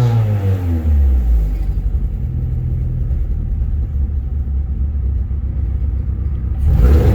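1997 Eagle Talon's non-turbo 420A 2.0-litre four-cylinder engine snapped open and settling back to an uneven idle, then revved again near the end. It misfires and sputters when the throttle is hit.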